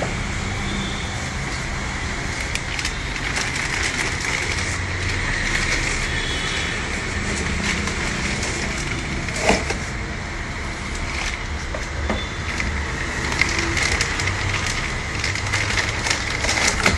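Packaging being handled while a laser printer is unboxed: crinkling and crackling with scattered clicks and knocks over a steady background noise, and one louder knock about halfway through.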